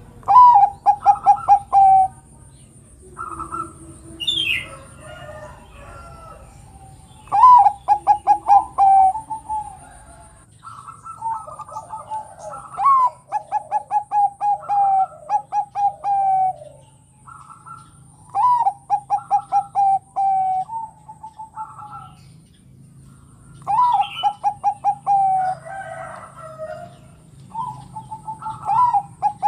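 Bangkok-type zebra dove (perkutut) singing its cooing song. About six phrases come several seconds apart, each a short rising note followed by a rapid run of staccato coos that falls at the end.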